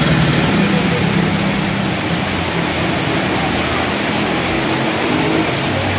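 Heavy rain pouring steadily onto a flooded street. Over it, motorbike engines pass through the floodwater in the first couple of seconds and then fade.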